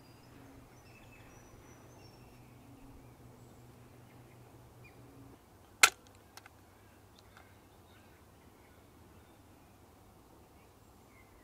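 A single sharp click about halfway through as the battery compartment cover of a Keystone K-615 Super 8 camera is snapped open, followed by two faint clicks. Faint bird chirps and a low steady hum run under it, and the hum stops just before the click.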